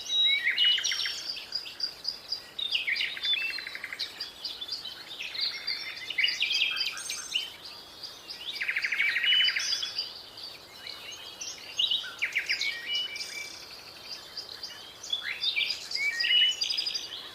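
Several songbirds chirping and calling in overlapping bursts, some notes short chirps and some rapid buzzy trills, over a faint steady hiss.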